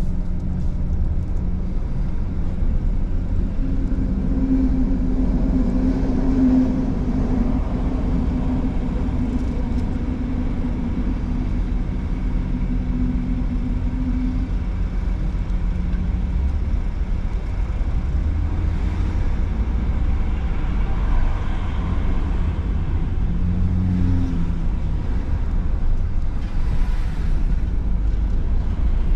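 Steady low rumble of vehicle engines, with an engine hum that holds a steady pitch for about ten seconds before fading.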